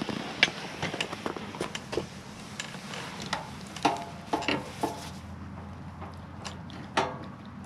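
Objects being handled: a string of irregular clicks and knocks, with a few short ringing metallic clinks about four seconds in and near the end.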